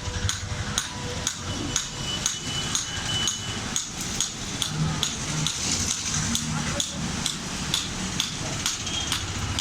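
Hammer blows on hot iron, struck in a steady rhythm of about two a second, as a sickle blade is forged.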